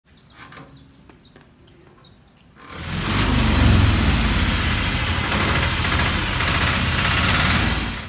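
Birds chirp faintly, then about three seconds in an auto rickshaw's rope-started engine catches and runs loud and rough with a rapid low beat through the rest.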